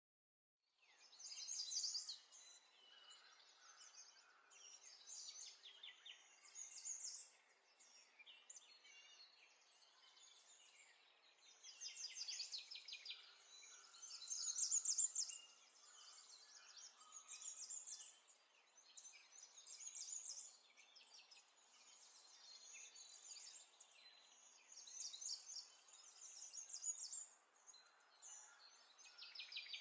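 Faint birdsong: many small birds chirping and twittering in quick clusters over a soft steady hiss.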